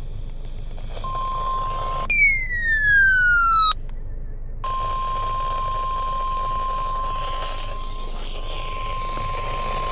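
NOAA Weather Radio warning alarm tone for a flash flood warning: a steady single high beep heard over radio hiss, starting about a second in. About two seconds in it is cut by a louder electronic sweep that falls in pitch for about a second and a half. After a short gap the steady tone comes back and holds.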